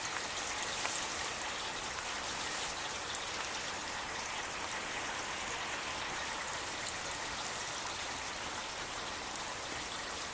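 Steady rain falling during a thunderstorm, an even hiss with a few scattered sharp drop ticks.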